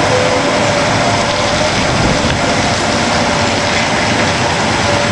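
A train passing in a rainstorm: a loud, steady rumbling rush, with faint held tones sounding over it.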